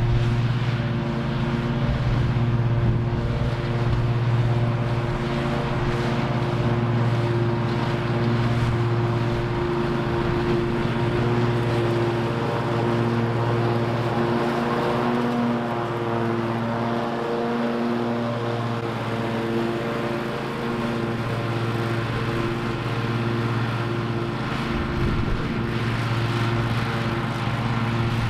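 Toro TimeCutter MyRide zero-turn mower's engine running at full throttle while mowing grass: a steady drone whose pitch wavers slightly a few times.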